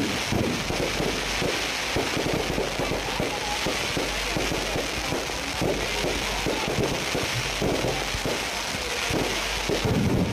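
Aerial fireworks going off in a continuous, dense crackle of many quick pops and bangs.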